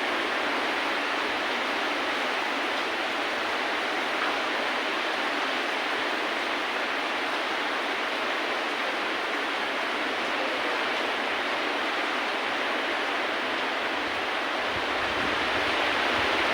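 Steady, even hiss of rain falling, with a low rumble coming in near the end.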